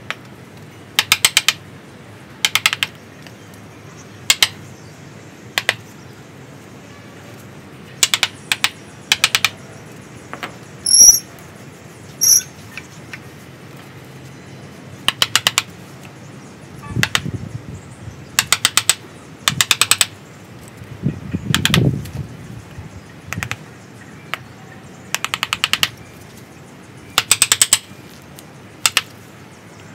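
Mallet tapping a chisel into a ficus bonsai trunk in quick bursts of several light strikes, a burst every second or two, as the wood is carved and hollowed. Two short high bird chirps near the middle.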